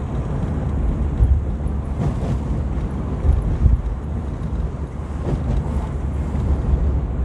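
Small manual car driving in third gear, heard from inside the cabin: a steady low engine and road rumble with a few brief louder thumps.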